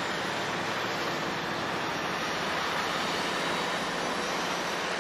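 A semi-truck with two flatbed trailers drives past, its diesel engine and tyres making a steady rumble and road hiss.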